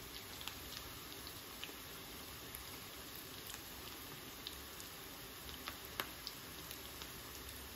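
Egg-and-cracker-breaded morel mushrooms shallow-frying in hot oil in a cast-iron skillet: a steady sizzle with scattered sharp pops, one louder pop about six seconds in.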